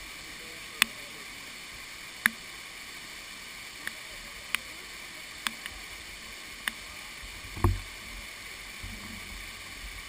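Steady rush of a waterfall pouring onto rocks, broken by sharp clicks every second or so and a dull thump about three-quarters of the way in.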